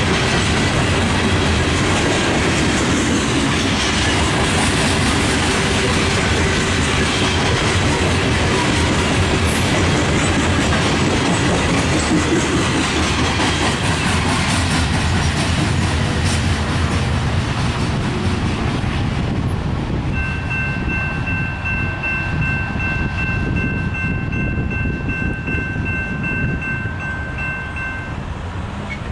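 Coal hopper cars of a freight train rolling past on the rails, a steady rumble with wheel clatter that fades over the last third as the end of the train moves away. A steady high-pitched ringing tone joins in about two-thirds through and lasts until near the end.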